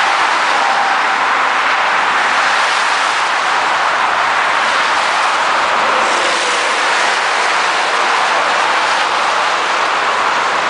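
Steady highway traffic noise: the tyres and engines of a long line of tow trucks and cars passing at speed make an even, unbroken rush.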